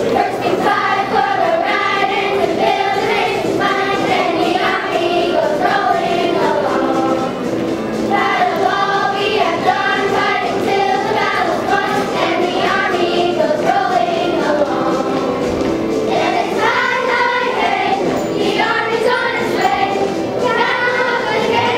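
A song with singing over backing music, playing loudly without a break as the music for a group dance.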